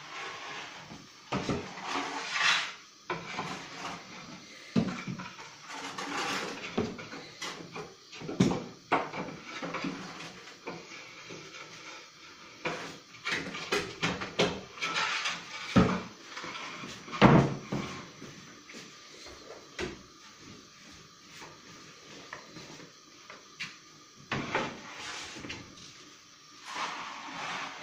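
Irregular knocks, clatter and scraping as baking trays and a long wooden peel are worked in a wood-fired bread oven, loading bread for baking. Two sharper, louder knocks come a little past the middle.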